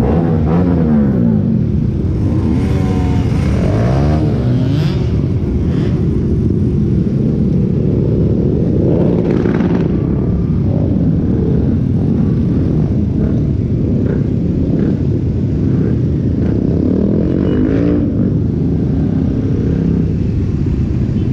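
Benelli 302R's parallel-twin engine running under way, the revs rising and falling several times as the rider accelerates and shifts.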